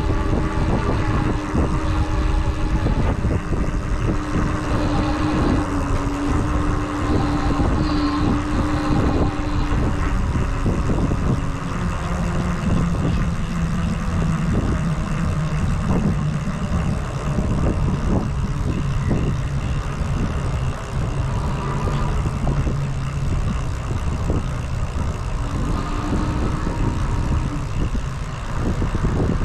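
Wind buffeting the microphone and tyre and road noise from a moving e-bike, with a faint steady hum that drops lower about ten seconds in.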